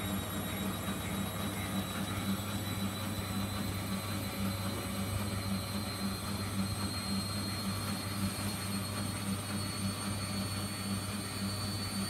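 Bendix BIW 103W front-loading washing machine on a spin-only cycle, its drum spinning up: a high motor whine climbs slowly in pitch over a steady low hum with a regular pulsing from the turning drum.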